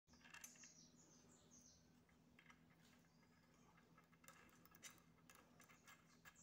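Near silence. There are faint high bird chirps in the first two seconds, then scattered faint metal clicks as nuts and washers are fitted by hand onto the bench's bolts.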